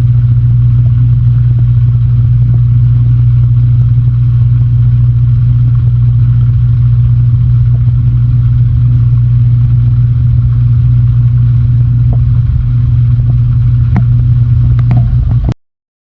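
Electric food blender's motor running steadily at full speed, whipping garlic, lemon juice and oil into an emulsified garlic sauce. It cuts off suddenly near the end.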